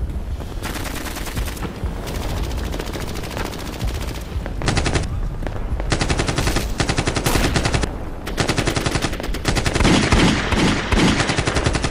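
Automatic gunfire in rapid bursts of overlapping shots with short gaps between them. The bursts get louder about halfway through.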